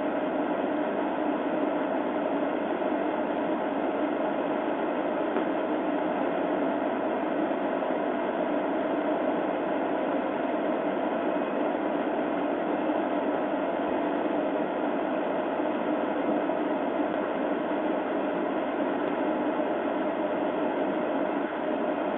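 Steady hiss and hum with no distinct events: the background noise of a police patrol car's dashcam audio.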